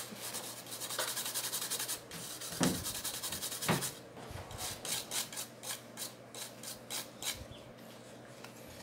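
A brush scrubbing the solder side of a TV power-supply circuit board wet with cleaning product, in quick back-and-forth strokes, with two brief knocks in the middle: cleaning the freshly soldered joints.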